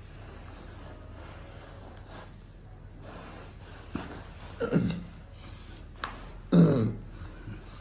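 Two short vocal sounds from a person, gasps or groans that fall in pitch, about halfway through and again near the end, each just after a small click, over a low steady hum.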